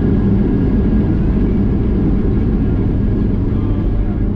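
Boeing 737-800 cabin noise heard from a rear window seat just after landing: a loud, steady rumble of the engines and airframe with a low hum running through it.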